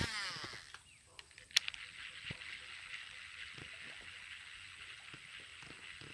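A cast with a baitcasting reel: a click, then the spool whirring down in pitch as the line pays out for about half a second. A sharp tick follows about a second and a half in. After that there are faint, scattered ticks over a low steady hiss as the lure is retrieved.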